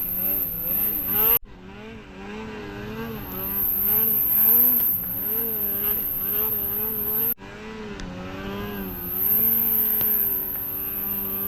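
Snowmobile engine running under a varying throttle, its pitch rising and falling over and over as the sled rides the trail; the sound cuts off abruptly twice, about a second and a half in and again past the middle.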